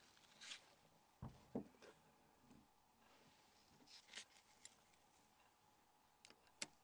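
Near silence broken by a few faint, short clicks and scrapes of a small Torx driver working the tiny screws of a mobile phone's hinge.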